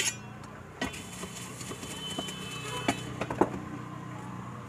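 Puffed rice and spices being tossed in a steel tin: a sharp metal clink at the start, then a dry rattling hiss with a few metal knocks, which stops about three and a half seconds in. A steady low hum runs underneath.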